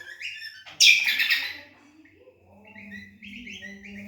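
Kecial kombok songbirds singing against each other in quick runs of short, high chirping notes. A loud, harsh burst of song comes about a second in, then a short lull, and the chirping starts again.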